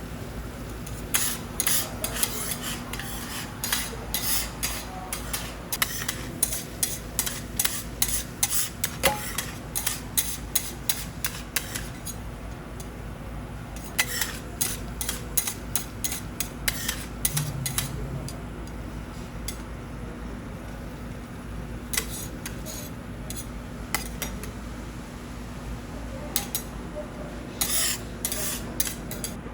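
Metal spatulas scraping and clicking against a teppanyaki iron griddle in quick runs of strokes, over a steady low hum.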